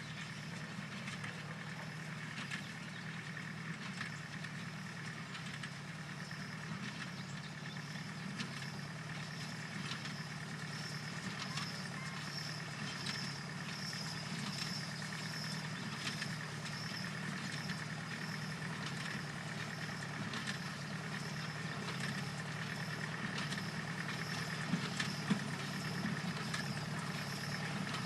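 1953 Farmall 300 tractor running at a steady speed, driving a New Holland baler, with faint clicks every so often.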